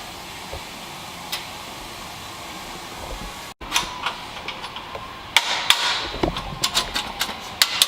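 Hand tools working on a car's exhaust headers: a steady background hiss with the odd click, then from about five seconds in a quick, irregular run of sharp metallic clicks and knocks.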